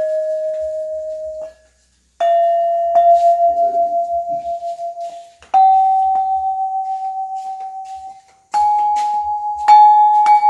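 Iron keys of a Tenganan-style Balinese selonding gamelan struck one at a time with a wooden mallet, each note left to ring for one to three seconds with a slow wavering beat as it fades. About five strikes, the pitch stepping upward key by key along the row.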